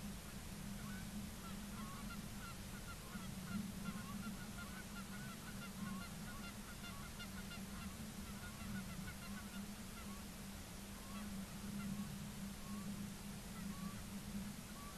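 A flock of birds calling: many short overlapping calls, densest in the first half and thinning out toward the end. A steady low hum lies underneath.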